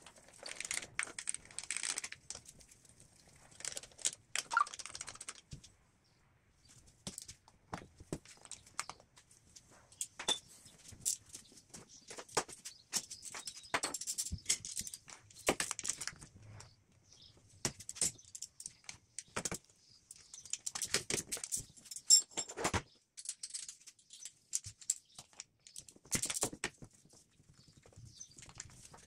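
Hand tools and small metal and plastic engine parts being handled: irregular clicks, clinks and short rattles with brief rustling, one sharper click standing out about two-thirds of the way through.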